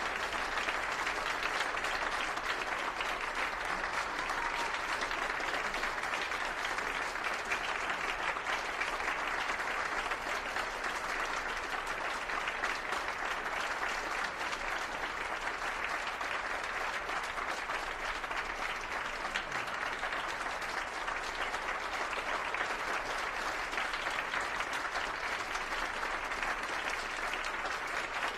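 Audience applauding, a steady wash of clapping that holds throughout.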